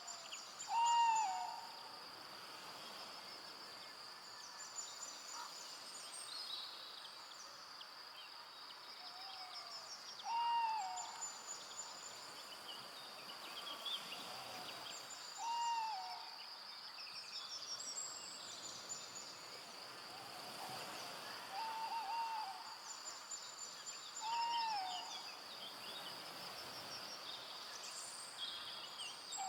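Forest evening ambience: a short, arching call repeats about every five seconds over a steady, high insect trill, with faint high-pitched chirps in between.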